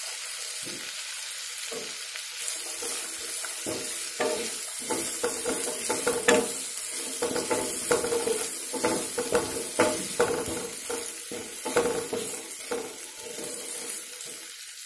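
Potato cubes and green peas sizzling in hot mustard oil in a pan, with a spatula scraping and knocking against the pan over and over as they are stirred from about two seconds in until near the end.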